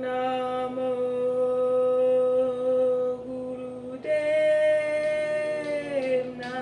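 A woman chanting a Kundalini yoga mantra in long held notes. The pitch steps up about four seconds in and drops again near the end.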